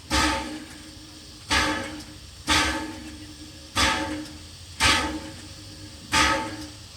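Train sound: a regular run of sudden, loud bursts, six in about seven seconds, each fading over roughly half a second, over a steady low tone.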